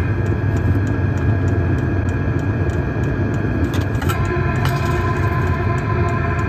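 An engine idling steadily with a constant low rumble. A couple of light metallic clicks come about four seconds in.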